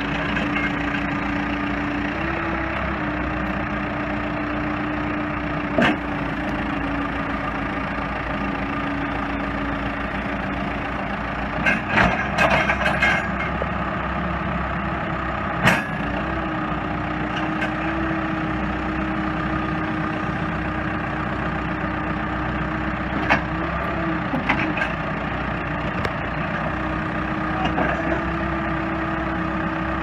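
2005 New Holland backhoe loader's diesel engine running steadily while the loader arms bring the front bucket down, its pitch stepping up and down slightly a few times. A few sharp clunks cut through, a cluster of them about twelve seconds in.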